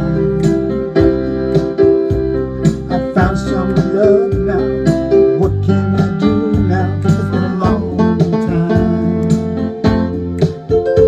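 Playback of a recorded song in an instrumental passage: keyboard chords over a steady bass line, with drum hits keeping the beat.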